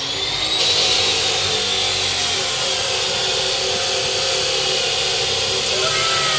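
Electric angle grinder running steadily on the steel frame, a loud hiss with a whine that wavers in pitch.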